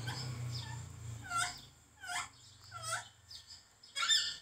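An animal's short, high-pitched cries, about five of them, each falling in pitch, over a low hum that fades out a few seconds in.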